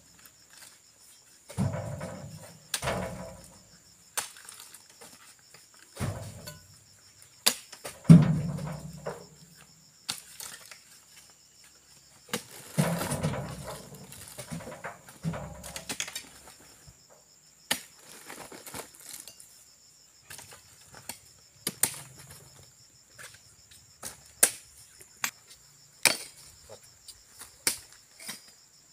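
Heavy oil palm fruit bunches being thrown and dropped into the weighing net and onto the pile: a series of dull thuds, the loudest about eight seconds in, giving way to lighter knocks and clicks in the second half. A steady high insect drone runs underneath.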